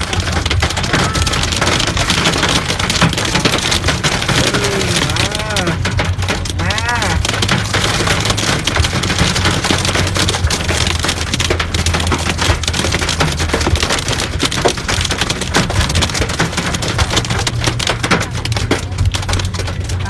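Hailstones and heavy rain pelting a car's roof and windshield, heard from inside the cabin: a dense, steady clatter of many small impacts over the low hum of the moving car.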